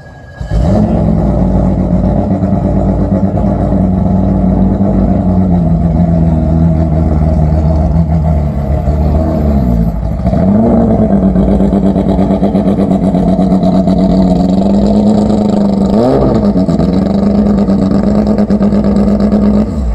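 Porsche 997 race car's flat-six engine running loud at steady, raised revs. The revs sag and pick up again twice.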